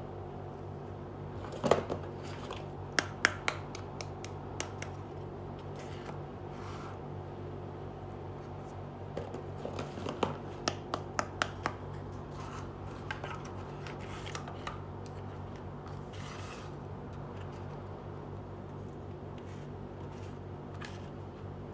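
Small plastic miniature kitchen toys clicking and clacking as they are handled and set down, in two flurries of sharp clicks a few seconds in and again around ten seconds in, with a few lighter taps later, over a steady low hum.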